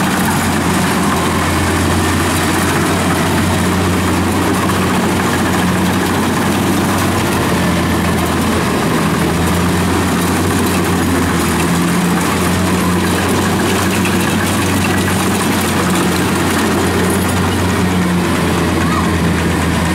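Kubota DC70 crawler combine harvester's diesel engine and cutting and threshing machinery running steadily under load as it harvests ripe rice, a loud, even drone.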